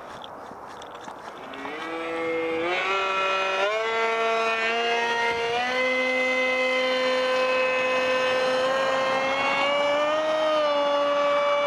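Electric motor and propeller of a foam RC park jet starting to whine about two seconds in, its pitch climbing in several quick steps with the throttle, then holding a steady pitch that edges up again near the end.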